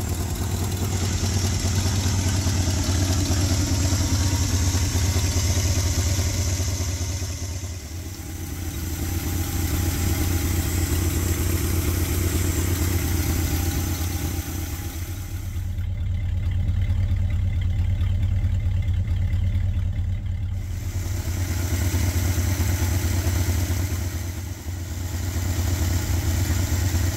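Ford 390 FE V8 of a 1976 F-250 idling steadily and smoothly, with the puffing of a large exhaust leak in the sound.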